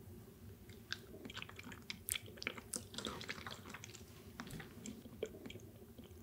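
Close-miked chewing of a mouthful of sea urchin and salmon roe: faint, soft, wet mouth sounds with many small, irregular clicks.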